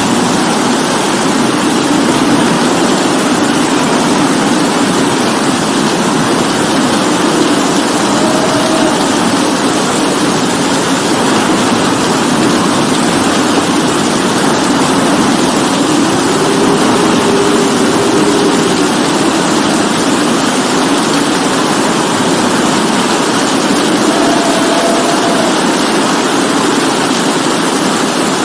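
Steady rainfall, an even unbroken hiss. A low drone swells and fades underneath a few times.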